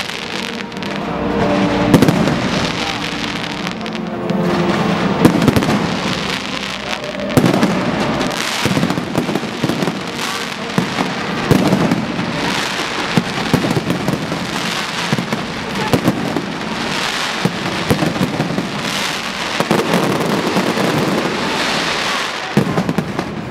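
Aerial fireworks going off in a dense barrage: a steady crackle of bursting shells broken by many sharp bangs, about one every second or so.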